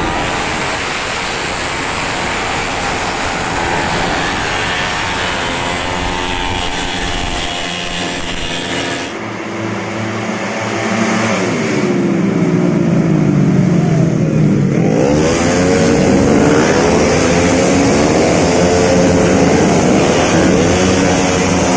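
Several tuned 131cc automatic racing scooters running hard as they pass, their engine pitch sweeping down and climbing again. The engines grow louder about halfway through.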